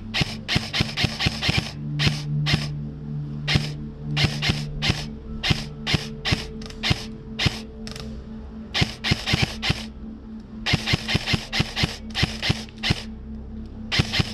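Background music: sustained low chords that change partway through, with many sharp percussive hits in quick clusters.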